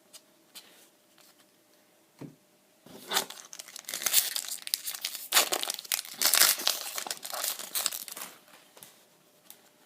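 Foil wrapper of a Pokémon Legendary Treasures booster pack being torn open and crinkled. A few light clicks come first, then about three seconds in a dense crinkling that runs until near the end.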